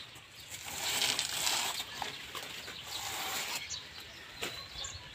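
Dry banana leaves and leaf sheaths rustling and tearing as they are pulled off a banana plant's trunk by hand, in two louder stretches about a second and about three seconds in.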